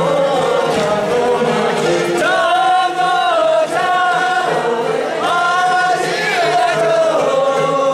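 A group of voices singing a song together in unison, in phrases of long held notes, accompanying a hand-in-hand line dance.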